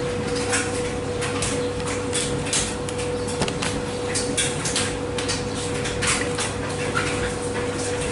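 Speed Queen front-load washer drum tumbling a wet load of towels during the wash: irregular swishes and soft knocks of the load over a steady hum.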